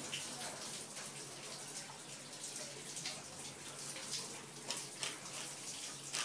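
Boerboel puppy lapping milk from a plastic bowl: a run of quick, irregular laps.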